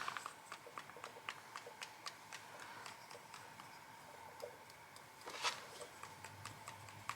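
Faint, quick ticks of a paintbrush being tapped to flick watercolour splatters onto watercolour cardstock, about three or four a second, with a brief hiss about five and a half seconds in.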